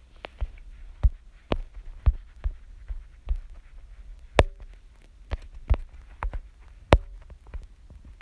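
Fingertips tapping on a touchscreen, picked up close by the device's own microphone: about a dozen short, irregular knocks, each with a dull thump, spaced roughly half a second to a second apart.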